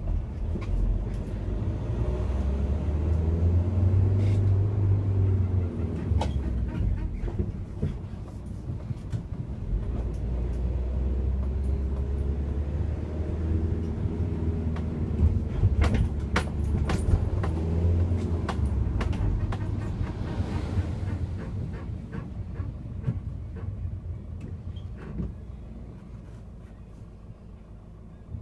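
Ford Transit Connect van heard from inside while driving: steady engine and road rumble that swells and eases with speed, with a few sharp knocks about halfway through.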